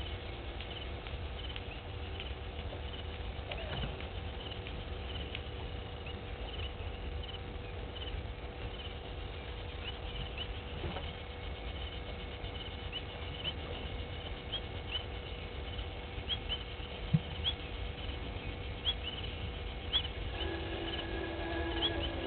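Bush ambience from an outdoor field microphone. A steady low rumble and a faint steady hum run throughout, with short high chirps repeating about every second that come more often toward the end.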